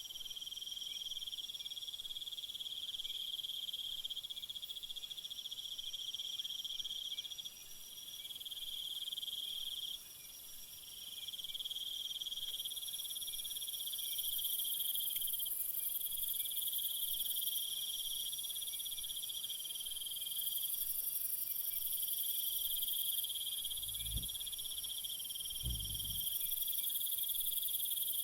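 Crickets trilling in overlapping layers: one at a middle pitch in long stretches with short breaks, others higher and getting louder about halfway through. Two brief soft low thumps near the end.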